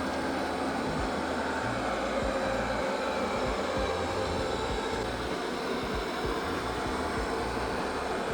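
Deenkee D40 robot vacuum running: a steady whirring hum from its suction motor and brushes.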